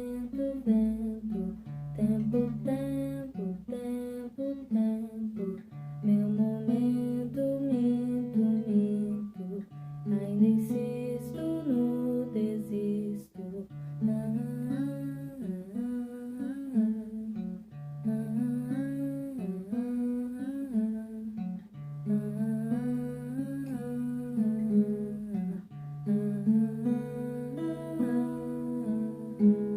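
Acoustic guitar song with a voice singing the melody over it, in a repeating pattern of held low notes.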